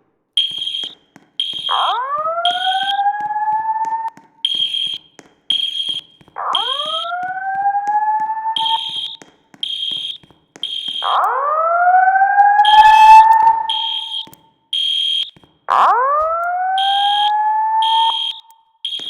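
Voice-evacuation fire alarm sounding between announcements. A high-pitched beeping tone in the temporal-three evacuation pattern (three short beeps, a pause, then again) is overlaid with a slow rising whoop tone. Four whoops, each about two and a half seconds long, signal that the building is to be evacuated.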